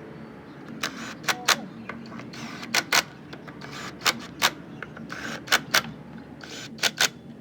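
Hand tools and metal parts clicking and clacking irregularly, about a dozen sharp knocks, one or two ringing briefly, over a low steady hum.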